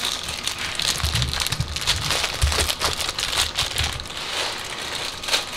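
Close handling noise from broken plastic electric-fan mounts being worked loose on an aluminium fan shroud: a rapid, steady crackling and clicking with a few dull low bumps.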